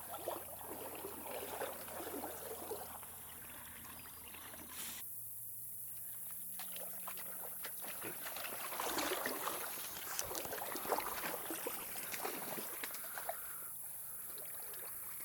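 Creek water splashing and trickling, with irregular small splashes and ticks that are busiest past the middle.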